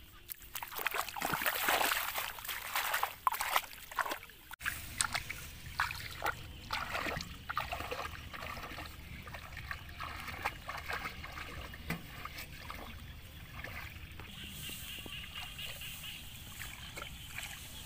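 Shallow paddy water sloshing and splashing as a person wades and works among rice plants, with stalks brushing and rustling. The loudest splashing comes in the first few seconds; after a sudden change about four and a half seconds in, quieter splashes and rustles continue over a low steady rumble.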